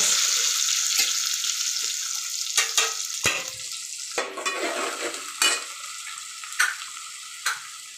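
Chopped onions sizzling as they hit hot oil and ghee with whole spices in an aluminium pot, the sizzle dying down gradually. Several sharp knocks and scrapes of a metal slotted spoon against the pot as the onions are stirred.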